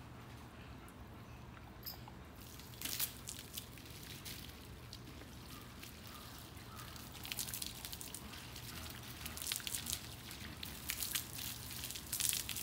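Water from a hose spraying onto a dog's soapy coat and splashing and dripping off a turf-covered table as the shampoo is rinsed off. It comes in irregular spurts starting about three seconds in and gets busier in the second half.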